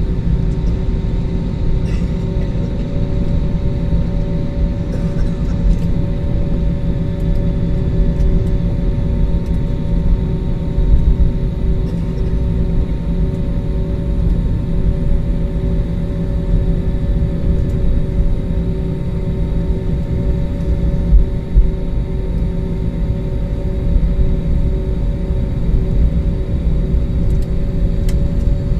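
Airliner cabin noise from the jet engines and airflow: a loud, steady low rumble with a few steady tones over it, heard from inside the cabin during take-off.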